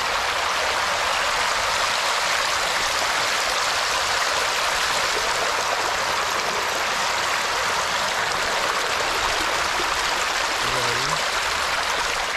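Water flowing steadily, an even, unbroken rushing sound.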